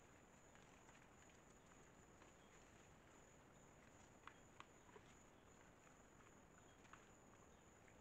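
Near silence: a faint, steady, high insect chorus, with a few soft clicks and rustles about halfway through as white-lipped peccaries move and root in dry leaf litter.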